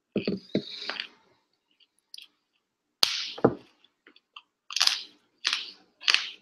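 Raw broccoli being snapped and crunched. A plastic bottle thuds down on a table at the start. A sharp crack comes about three seconds in as a floret is broken off, then three loud crunching bites and chews near the end.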